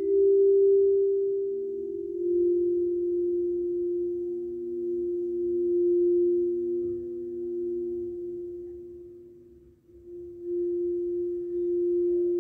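Sora, a sound-healing instrument of tuned metal pillars, giving a pure, sustained tone that swells and fades several times. It dips almost to nothing about ten seconds in, then sounds again.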